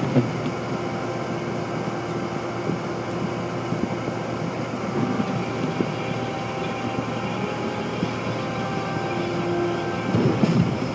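Steady road and engine noise inside a car's cabin while it drives on a snow-covered road, with a louder, busier stretch about ten seconds in.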